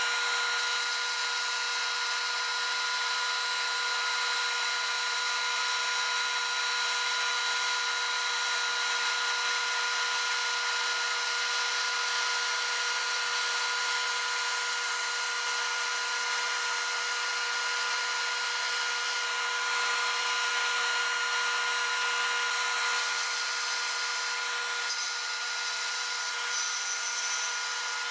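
Band saw with a 6 teeth-per-inch blade cutting through a thick block of acrylic plastic: a steady machine whine over a constant hiss.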